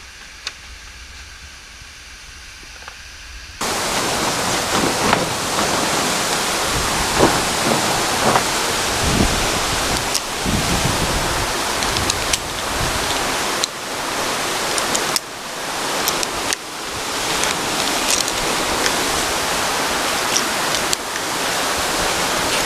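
Loud, steady rushing roar of a waterfall that starts abruptly about three and a half seconds in, after a quieter stretch. A few short knocks sound over it.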